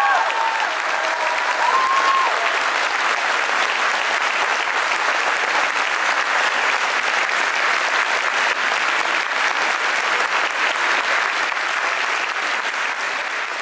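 Large audience applauding steadily after a performance, thinning slightly near the end.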